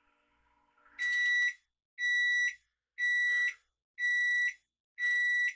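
Toshiba microwave oven's end-of-cycle alert as the timer runs out: five steady high beeps, each about half a second long, one a second. The faint running hum stops just before the first beep.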